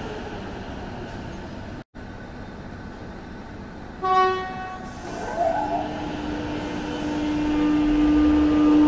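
High Capacity Metro Train running along the platform, with steady rolling noise that cuts out briefly just before two seconds in. About four seconds in comes a short horn toot. An electric traction motor whine then holds a steady pitch.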